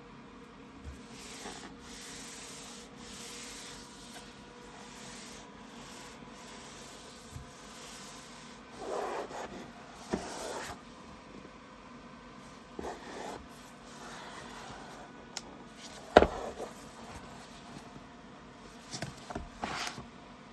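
Cardboard and plastic packaging being handled and slid open: soft rubbing and scraping, louder around the middle and near the end, with a few light knocks and one sharp click about two-thirds of the way in.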